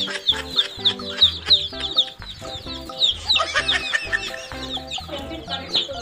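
A flock of chicks peeping continuously: many short, high chirps that slide downward, several a second, over background music with a steady beat.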